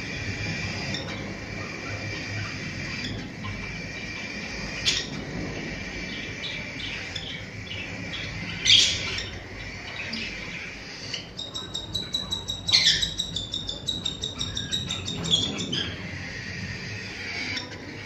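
Cockatiel chick making a rapid, rhythmic run of begging calls for several seconds in the second half, typical of a chick being fed by its parent. A sharp chirp comes just before the middle, over a steady high background tone.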